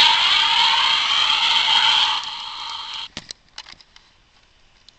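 Toy fighter jet's electronic sound effect played through its small built-in speaker: a noisy whoosh with sweeping pitch that fades in steps and cuts off about three seconds in. A few light clicks of the plastic toy being handled follow.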